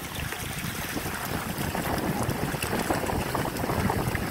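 Water splashing and lapping against a pedal boat as it is paddled along, with wind rumbling on the microphone.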